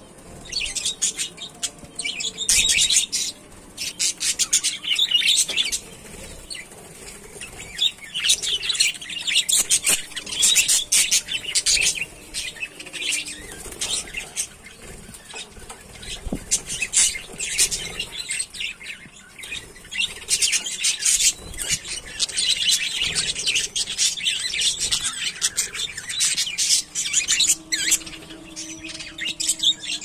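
A flock of budgerigars chattering and chirping continuously, a dense mix of quick high chirps that comes in louder and quieter spells.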